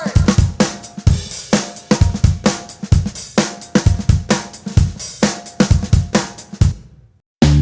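Background music carried by a drum kit: a steady beat of kick, snare, hi-hat and cymbal strikes that fades out and stops just before the end.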